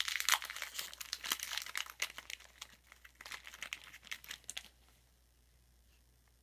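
Crinkling and tearing of a trading-card pack wrapper as it is ripped open and peeled off the stack of cards. The irregular crackling stops about five seconds in.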